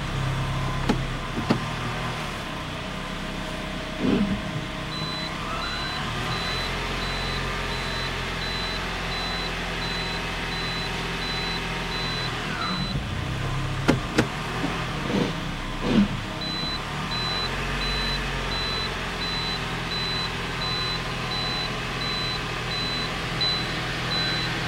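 2015 Toyota RAV4 idling with its CVT in gear, heard from inside the cabin while the selector is worked through its positions to flush fresh transmission fluid through the valve body. A whine rises about five seconds in, holds, and falls away around twelve seconds. A few clicks and a rapid high beeping that comes and goes run over the steady engine hum.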